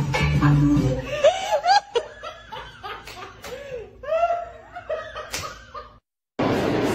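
Background music with a steady bass fades out in the first second, then a person laughs in high-pitched, rising-and-falling bursts for several seconds. After a brief gap of silence, a steady noisy din starts near the end.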